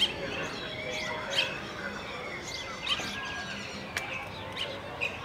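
Short high bird chirps repeating about every second and a half, with other thin bird calls between them and one sharp click about four seconds in.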